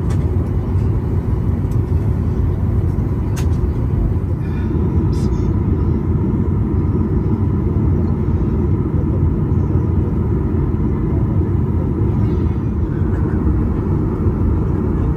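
Steady low rumble inside the cabin of a Boeing 737-800 moving on the ground, the sound of its engines and cabin air heard from a window seat.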